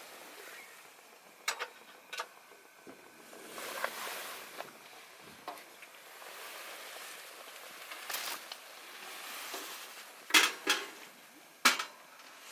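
A series of sharp clicks and knocks, like gear or cookware being handled, over soft rustling. The three loudest knocks come close together near the end.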